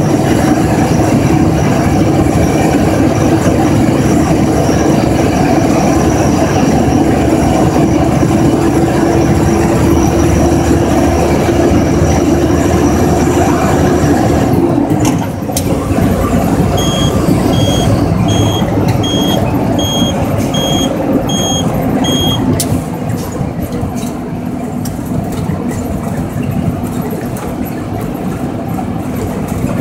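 Loud in-cab noise of a Mack truck on the highway: the diesel engine drones steadily under road and wind noise, and its note drops about halfway through. Shortly after, a series of about eight short electronic beeps sounds, a little over one a second.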